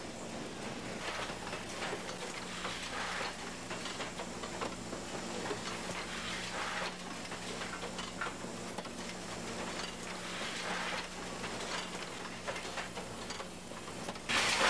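Hosiery factory machinery running: a steady low hum under a hissing, crackling noise with scattered light ticks and clatter, getting louder just before the end.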